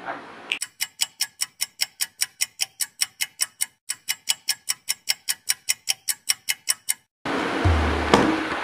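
Clock ticking sound effect: even, sharp ticks at about four a second, with a brief pause partway through. The ticking stops about seven seconds in, and background music with a deep bass beat starts.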